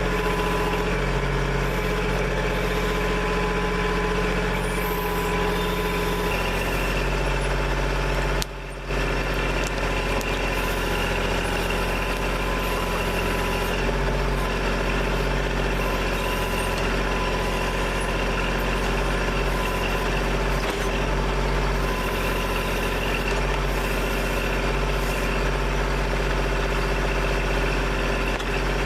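Kubota backhoe's diesel engine running steadily while digging. Its note shifts about six seconds in, and the sound drops out for a moment near eight and a half seconds.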